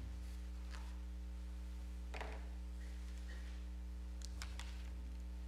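Steady low electrical hum in the room audio, with a few faint knocks and shuffles of someone moving about, about two seconds in and again near the end.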